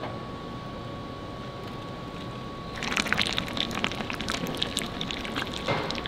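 Molten iron pouring as a stream into a ladle, crackling and spitting densely from about three seconds in. Before that, a steady hiss with a thin, high, steady tone.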